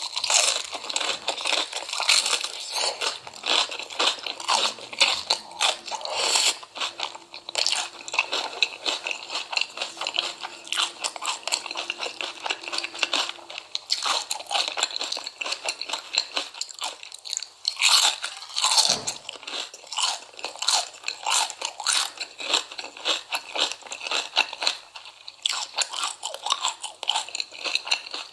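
Close-up crunching, biting and chewing of crisp food, a dense run of rapid crackles with no pause.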